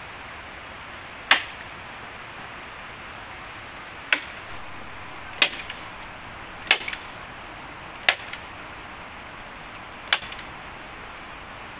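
Six sharp blows of a hand tool striking wood, spaced irregularly a second or two apart, some followed by a faint second tap, over a steady background hiss.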